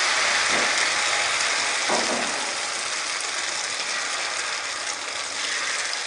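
Beaten egg mixture with chopped vegetables sizzling in hot ghee on a flat iron tawa as it is ladled on and spread out, a steady frying hiss that slowly eases.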